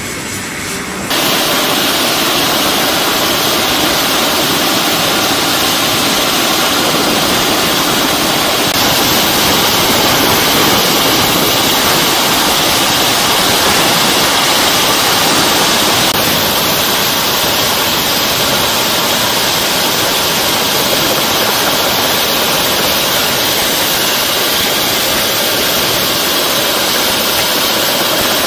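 MH-139A Grey Wolf helicopter's twin turboshaft engines and main rotor running on the ground: a loud, steady rushing noise that gets abruptly louder about a second in.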